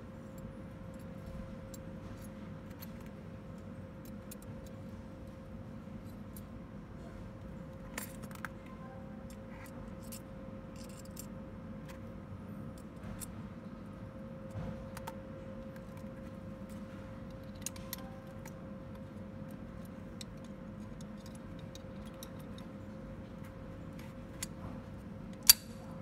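Scattered small metallic clicks and clinks of aluminum sliding-door-lock parts and an Allen key being handled and fitted together, over a steady hum; one sharp, louder click near the end.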